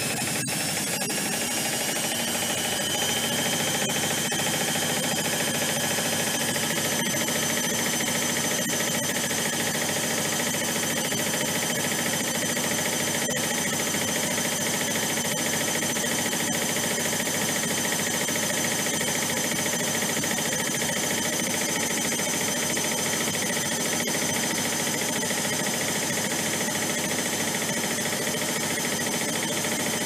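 Zanussi Electrolux 1200 6 kg front-loading washing machine spinning its drum. The motor whine rises in pitch over the first few seconds, then holds steady at top spin speed with a constant mechanical hum.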